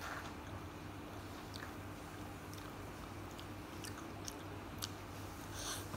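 Close-miked mouth sounds of a person eating yellow noodles: soft wet chewing with scattered small clicks, and a slightly louder burst near the end, over a steady low hum.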